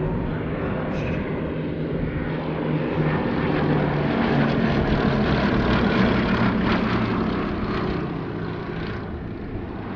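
Two Westland Lysanders' Bristol Mercury nine-cylinder radial engines running as the aircraft pass overhead. The sound grows louder to a peak about six seconds in, then fades as they move away.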